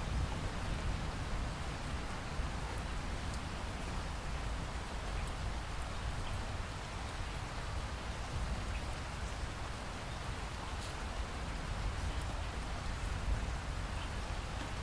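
Steady rainfall with scattered drops ticking on surfaces over a constant low rumble.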